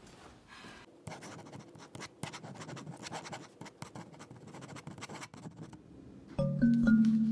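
Pen scratching on paper on a clipboard in irregular writing strokes. Near the end, louder background music with struck notes begins.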